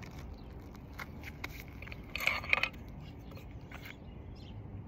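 Scattered light clicks and taps, with one short scrape of about half a second a little over two seconds in: handling noise from fitting a replacement asphalt shingle and picking up a hammer.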